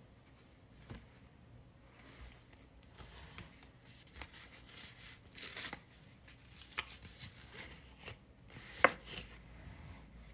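Hands rustling and handling a card in its holder, with scattered light scrapes and clicks and one sharper click about nine seconds in.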